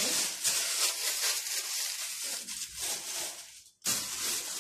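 Thin plastic shopping bags rustling and crinkling as a hand rummages through them for groceries. The noise breaks off briefly about four seconds in, then starts again.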